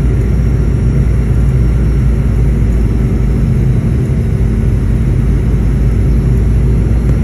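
Steady cabin noise of a passenger aircraft descending to land: an even, loud rumble of engines and rushing air heard from inside the cabin, with a low steady hum under it.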